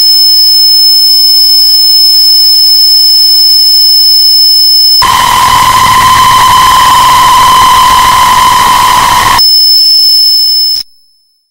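Harsh noise music: loud static with a steady high electronic whine. About five seconds in it switches to a denser hiss carrying a lower steady tone, switches back near the end, then cuts off abruptly into silence.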